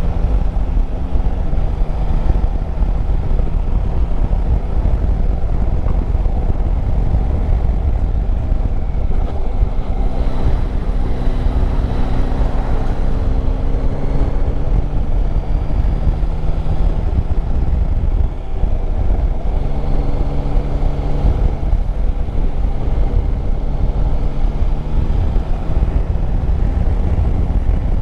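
Wind noise rumbling on the microphone of a moving motorcycle, over the Yamaha Tracer 9 GT's 890 cc inline-three engine running at road speed, its note rising about ten seconds in and then holding steady.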